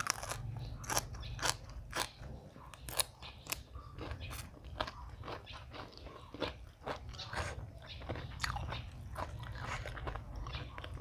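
Close-up crunchy chewing and biting of spicy green papaya salad, a quick run of sharp crunches about twice a second, over a steady low rumble.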